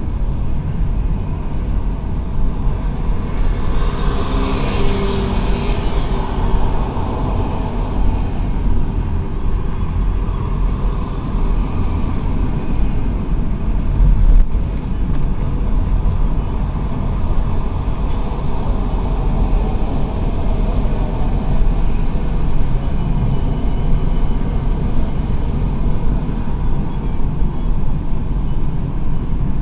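Steady low road and tyre rumble of a moving car on a wet highway, heard from inside the cabin. About four to six seconds in, a passing vehicle swells briefly above it.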